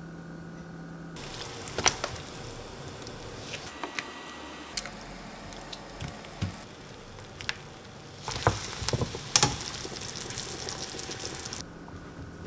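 A pot of pork back ribs boiling hard, water bubbling and hissing steadily, with a few sharp knocks and splashes as pieces of green onion and ginger go into the pot. The boiling gets louder about eight seconds in and cuts off near the end.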